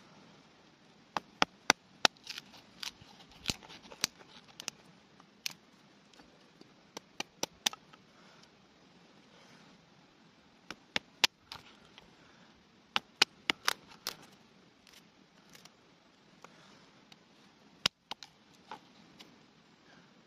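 Steel knife blade shaving thin strips of wood off a stick laid on a wooden chopping stump, cutting tinder shavings: sharp wooden knocks and clicks in irregular clusters, with soft scraping between.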